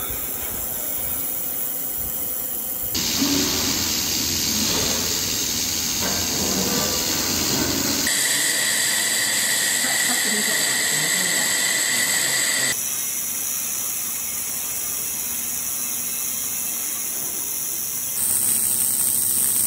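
Handheld laser welding: a steady hissing noise from the weld spot and its gas flow. The sound changes abruptly four times as one weld gives way to another, with a steady high whine in one stretch.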